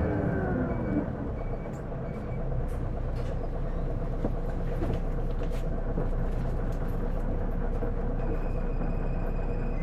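Isuzu Erga city bus's inline-six diesel heard from inside the cabin. Its engine and drivetrain note falls away in the first second as the bus slows, then it idles steadily, with a few light clicks and a thin high steady tone joining near the end.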